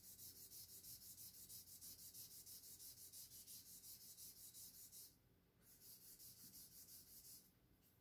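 Paper stub (tortillon) rubbed quickly back and forth over charcoal on drawing paper to smear and blend it: a faint rubbing hiss at about five strokes a second, with a short pause about five seconds in, stopping just before the end.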